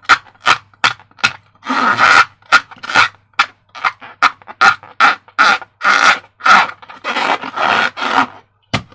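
Slime being squeezed and squished by hand: a quick, irregular run of squelches, some short and sharp, some drawn out for about half a second.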